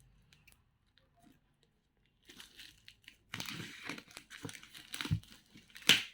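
Parcel wrapping being crinkled and torn open by hand: quiet at first, then crinkling from about two seconds in, building into a run of rips with the loudest, sharpest rip near the end.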